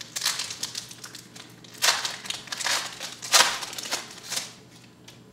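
A trading-card pack wrapper being crinkled and torn open by hand, in a run of crackly rips, the loudest about two and three and a half seconds in.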